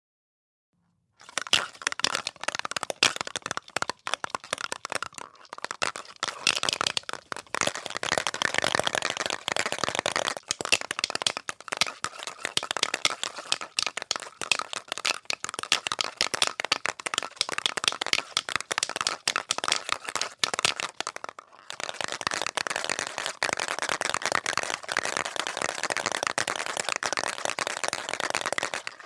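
Aerosol spray paint can being shaken hard, the mixing ball inside rattling rapidly against the can. It starts about a second in, with two brief pauses, about five seconds in and about twenty-two seconds in.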